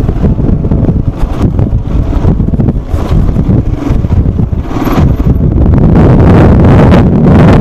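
Wind buffeting the microphone of a Royal Enfield Himalayan single-cylinder motorcycle on the move, with the engine running underneath. The wind noise grows louder and steadier about two-thirds of the way through.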